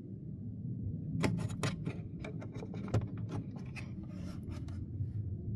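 Irregular small clicks, taps and scraping of hard plastic glovebox parts being handled and worked on by hand, over a steady low hum.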